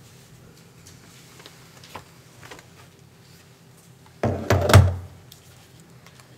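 Quiet room tone with a few faint clicks, then, about four seconds in, a quick cluster of knocks and thumps lasting under a second, the loudest sound here.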